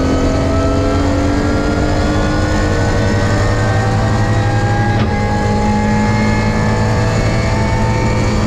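BMW E36 rally car's engine pulling hard, its pitch climbing steadily in fifth gear, then a quick upshift to sixth about five seconds in, after which the revs dip and climb again. Heard from inside the cockpit, with road noise underneath.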